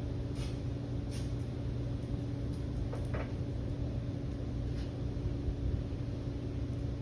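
A steady low hum fills the room. A few faint clicks and a short rustle about three seconds in come from hands handling masking tape on a trombone bell.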